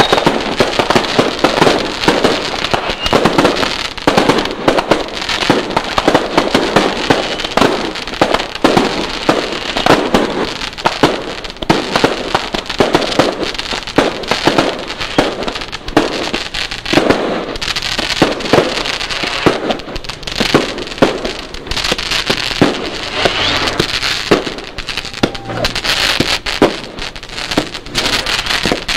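Small Class C firework cakes on a board firing in a continuous barrage: rapid, overlapping pops, several a second, over a steady crackle.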